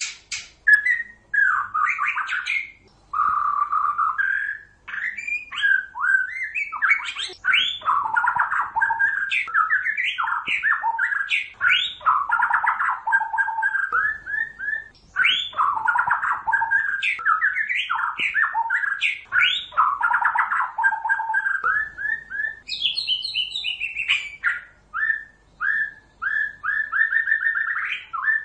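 White-rumped shama singing a long, varied song of quick phrases of rising and falling notes, nearly without pause. About two-thirds of the way through there is a higher-pitched phrase, and near the end a run of evenly repeated notes.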